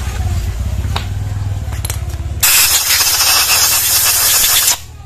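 A low hum with a few light clicks, then a loud, steady pressurised hiss that starts abruptly about halfway in and cuts off suddenly after about two seconds.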